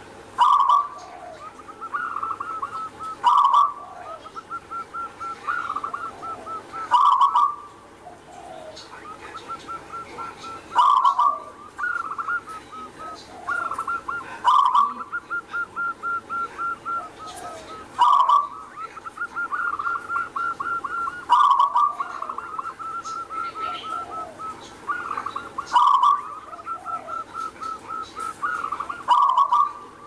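Zebra dove (perkutut) singing: rapid runs of short staccato notes broken by a louder coo about every three to four seconds, repeated phrase after phrase.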